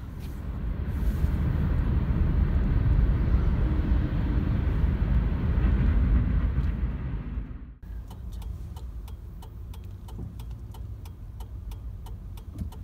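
Steady low road rumble inside a moving car's cabin. About eight seconds in it cuts off abruptly, and a quieter idle follows with the car's turn-signal indicator ticking about three times a second.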